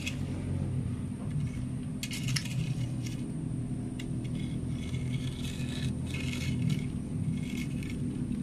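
Short bursts of gravel scraping and rattling as a long pole prods about on the stony ground, over a steady low hum.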